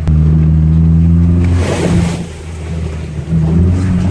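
Ford Ranger pickup engine held at steady high revs, then a short rush of water spray about a second and a half in as the truck hits a puddle. The revs drop off and pick up again near the end.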